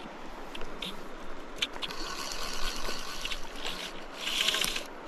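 Fly line being stripped in by hand through the rod guides while playing a hooked trout: several short hissing rasps, the longest about four seconds in, over a steady rush of river water.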